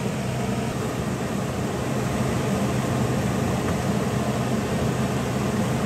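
Steady mechanical fan hum, an even whir with a low droning tone that does not change.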